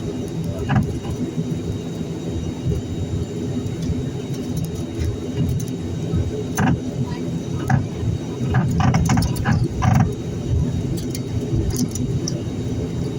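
Steady low drone of an ATR 72-600's turboprop engines heard inside the cabin while the airliner taxis after landing. Scattered clicks and rattles from the cabin come through it, bunched between about six and ten seconds in.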